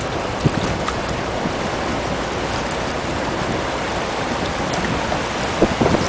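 Steady rush of a strong tidal current's turbulent water with wind on the microphone, heard from a boat, with a brief knock about half a second in and another near the end.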